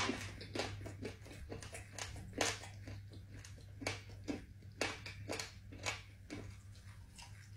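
Scattered short wet smacks and clicks of eating and of fingers working soft food, at irregular intervals, over a steady low hum.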